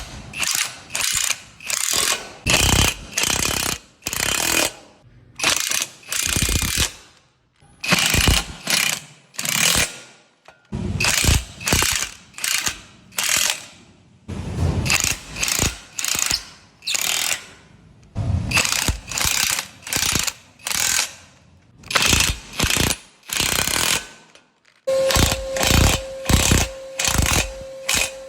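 Hercules 1/2-inch high-torque impact wrench hammering in repeated short bursts as it drives fasteners into concrete. A steady tone joins about three seconds before the end.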